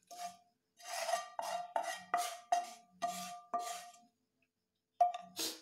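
Kitchen utensil scraping and knocking fried masala out of a non-stick tava into a glass bowl of beaten eggs, the pan ringing briefly at each stroke: a quick run of about three scrapes a second, then two more near the end.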